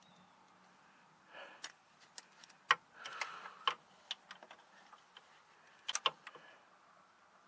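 Scattered sharp clicks and clinks of hand tools being handled, a double click about six seconds in, with a few soft rustles between.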